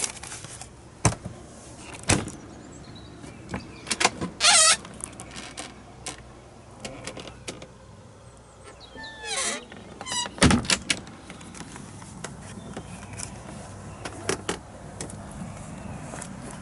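Camper van fridge and cupboard doors and latches being opened and shut: a run of sharp clicks and knocks, the loudest about ten seconds in. A short squeak comes about four seconds in, and a longer wavering squeak just before the loudest knock.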